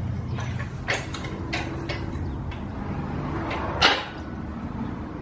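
Steel upright of a Strength Shop Riot Yoke being handled and tipped onto its side, knocking and clanking several times, with the loudest clank about four seconds in.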